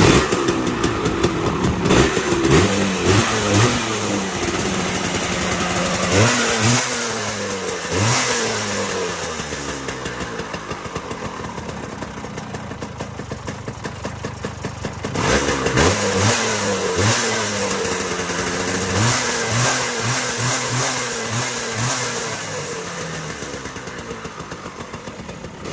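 Vespa Super scooter's single-cylinder two-stroke engine, with a VMC electronic ignition and a Polini exhaust, revving up and down again and again, its pitch rising and falling. Loudest near the start and again about six and fifteen seconds in.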